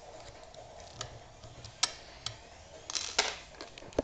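Small, sharp metallic clicks and taps of a lock pick working inside a Mul-T-Lock 7x7 cylinder, scattered and irregular, with a brief scraping rustle about three seconds in and one sharp click at the very end.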